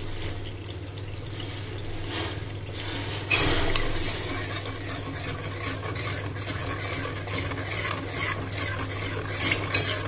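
Steel spoon stirring a thick, wet masala paste in an aluminium pot, scraping and clinking against the pot, growing louder about three seconds in. A steady low hum runs underneath.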